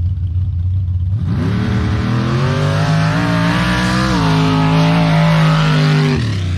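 A mud drag racing truck's engine at full throttle on a run down the dirt strip. The engine note climbs about a second in, holds high with a couple of small jumps in pitch, then drops away near the end, over a steady low rumble of other engines.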